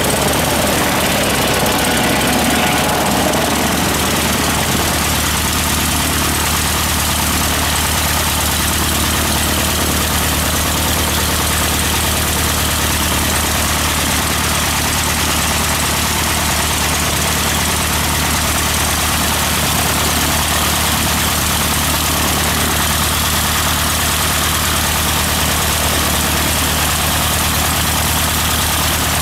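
Slingsby Firefly light aerobatic plane's piston engine idling steadily on the ground, its propeller turning, a constant low drone.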